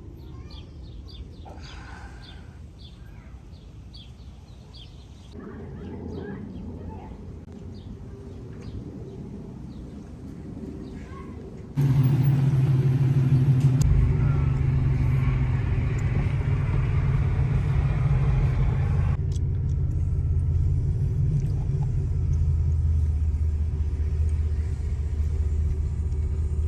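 Steady low rumble of a vehicle running, which jumps abruptly to a much louder level about halfway through. Before that there is a quieter, fainter hum with scattered light ticks.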